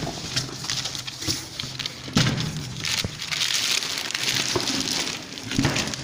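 Cardboard carton and plastic wrap rustling and crinkling while a boxed electrical control panel is handled and lifted out, with scattered light knocks.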